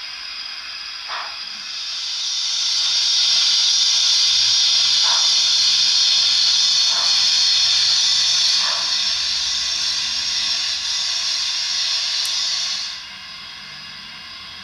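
Sound-decoder steam effects from a Hornby OO gauge model of a Stanier Princess Coronation Pacific, heard through its small onboard speaker: a long steam hiss that builds over a second or two, holds, and cuts off about thirteen seconds in. A few faint, slow exhaust beats sound under the hiss.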